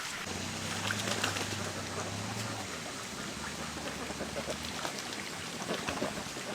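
A flock of domestic ducks calling softly among themselves, with scattered light clicks and a low steady hum that drops in pitch about three seconds in.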